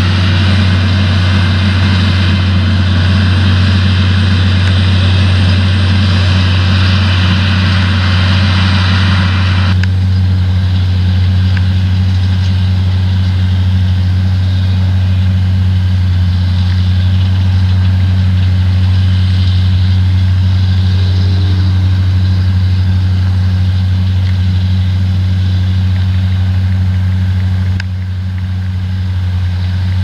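Self-propelled potato harvesters at work: a steady diesel engine drone with a broad machinery clatter on top. The higher clatter drops away suddenly about ten seconds in, leaving mostly the low engine drone.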